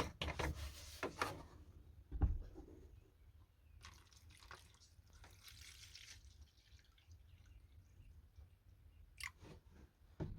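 Hammer head being put into a bath of deoxy rust-remover solution: light clicks and knocks from the container, one heavier thump about two seconds in, and liquid dripping and splashing.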